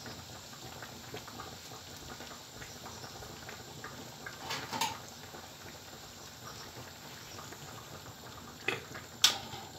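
Sugar syrup of an ekmek tatlısı (Turkish bread dessert) simmering in a wide aluminium tray on the stove, a low steady bubbling. A few brief clicks come about halfway through and twice near the end.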